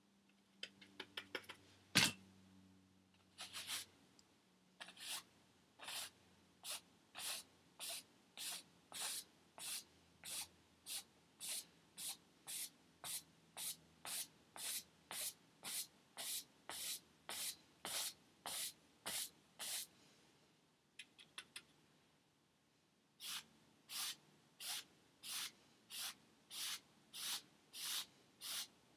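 Paintbrush scrubbing back and forth across a stretched canvas in short, even strokes, about three every two seconds, with a pause of a few seconds about two-thirds of the way through before the strokes resume. A few small clicks and one sharp tap come near the start.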